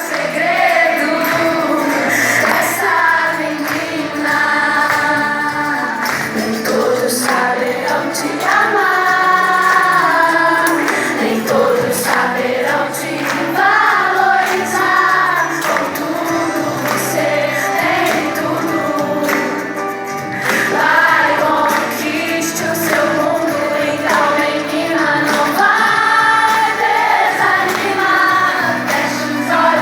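A group of female voices singing a gospel song together over backing music.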